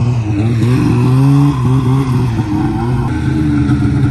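Two-stroke snowmobile engine running at idle, its pitch wavering slightly up and down.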